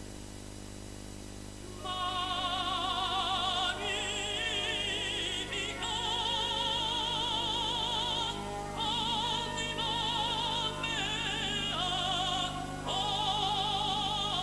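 Operatic singing: a high voice with strong vibrato in long held phrases broken by short pauses, coming in about two seconds in, over a steady low hum.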